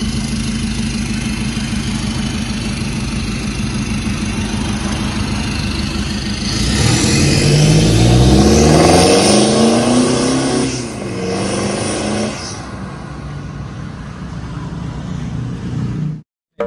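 Toyota Kijang Innova's four-cylinder turbodiesel idling, then revving up as the car pulls away about six seconds in. The pitch climbs, drops once at a gear change, climbs again, then the engine falls to a quieter steady sound as the car drives off, and the sound cuts off abruptly near the end.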